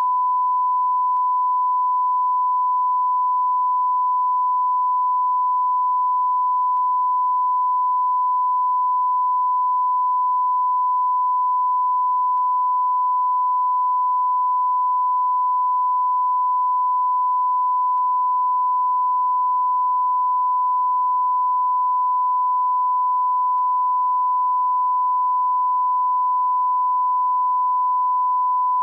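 Electronic beep sound effect: a pure sine tone held at one steady pitch without a break, with faint clicks about every five and a half seconds.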